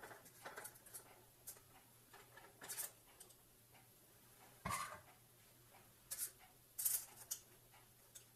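Metal batter scoop scraping and tapping while muffin batter is portioned into a tin: scattered light clicks and short scrapes, with a louder knock about five seconds in.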